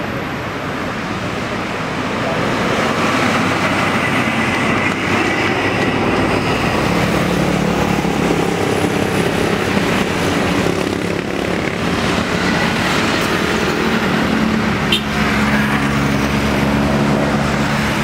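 Steady road-traffic noise with a diesel engine idling, a low steady hum that comes out more clearly about a third of the way in.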